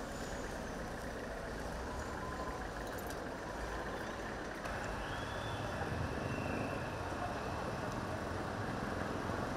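Steady outdoor street noise with the low rumble of traffic and vehicle engines. It gets a little louder about halfway through.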